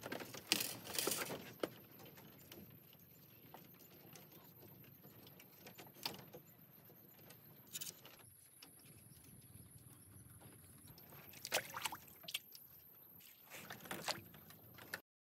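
Bamboo poles knocking and clattering against one another as they are handled, in scattered clusters of knocks with quieter stretches between.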